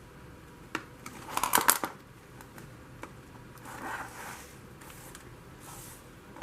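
Hard plastic packaging being cut and worked open, with a quick cluster of sharp snips and crackles about a second and a half in, then softer scraping rustles of the plastic and a sharp snap at the very end.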